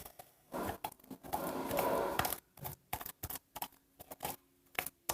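Homemade shampoo-and-glue slime being kneaded and stretched by hand: irregular sticky squishes and crackles, with one longer stretch of squelching about a second and a half in.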